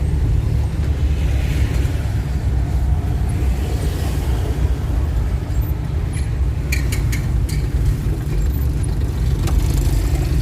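Steady low rumble of a moving vehicle's engine and road noise, heard from inside the vehicle, with a few light clicks a little past halfway.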